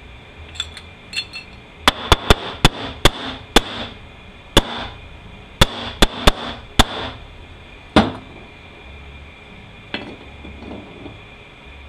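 About a dozen sharp metal taps and clinks from steel automatic-transmission clutch drum parts being worked on at a bench. A quick run of taps comes about two to four seconds in, a few more around six seconds, and a last one near eight seconds.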